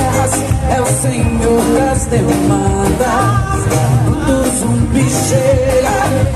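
Live music: women singing a duet into microphones over an amplified musical accompaniment with a steady bass and beat.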